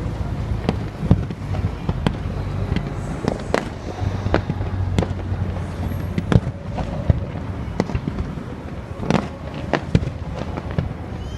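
Aerial fireworks going off: an irregular run of sharp bangs and cracks, some trailing a short echo, over a steady low rumble.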